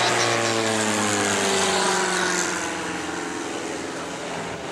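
Silence Twister aerobatic plane's piston engine and propeller running hard, the note falling steadily in pitch as it passes and climbs away. It gets quieter about two and a half seconds in.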